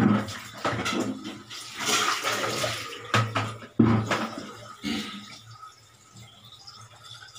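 Water sloshing and splashing in a plastic bucket as a plastic dipper is dipped in and lifted out, with a few sharp knocks of plastic on plastic. It quietens about five seconds in.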